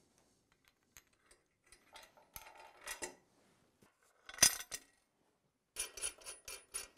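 Aluminum mount block and bolt hardware being handled on a steel truck frame: scattered light metallic clicks, one sharp clack about four and a half seconds in, then a rapid run of small clicks and rattles near the end.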